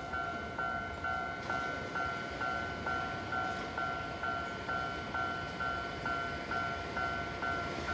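Japanese level-crossing warning bell ringing steadily, a two-tone electronic ding repeating about twice a second, over a low rumble.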